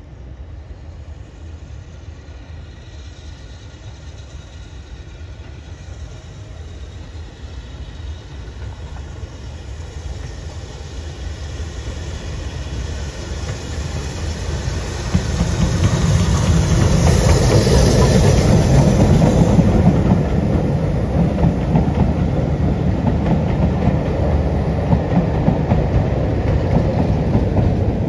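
BR Standard 4 tank steam locomotive hauling a train of coaches, approaching and growing steadily louder, passing at its loudest about halfway through. Its coaches then keep rolling past.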